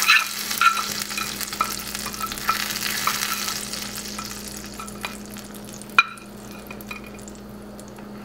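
A hot-oil tempering of mustard seeds and urad dal sizzling and crackling as it settles on top of a bowl of sambar. The sizzle fades away over about six seconds, with a single sharp click about six seconds in.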